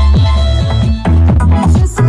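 Electronic dance music played loud through a carretinha sound-system box loaded with Triton woofers, horn drivers and tweeters. A deep kick drum hits about four times a second, and the beat changes about halfway through.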